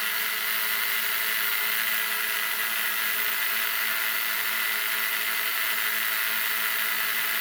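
Small FPV quadcopter drone's electric motors and propellers spinning with a steady, even whir, the drone armed but not taking off.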